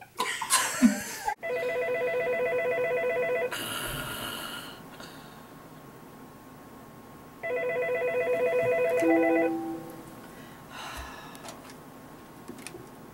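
Desk telephone ringing twice, each ring a fast-warbling electronic trill about two seconds long, after a brief burst of noise at the very start.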